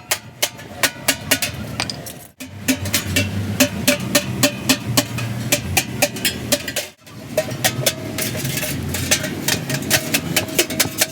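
Hammer blows on the sheet-metal shell of a truck silencer, irregular strikes several a second, some with a short metallic ring. The sound breaks off briefly twice.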